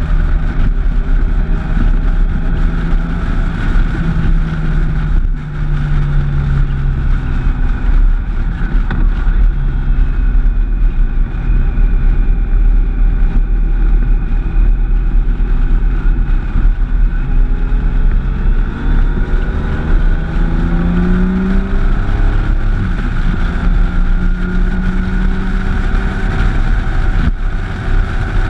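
Motorcycle engine running at road speed under heavy wind rumble on the microphone. The engine note steps and glides with throttle and gear changes, rising about two-thirds of the way through.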